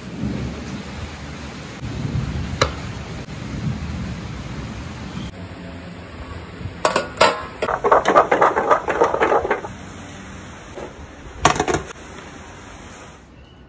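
Cookware being handled: a low rumbling at first with a single click, then a quick run of clattering knocks from a lidded grill pan, and one loud knock near the end as a baking tray is handled.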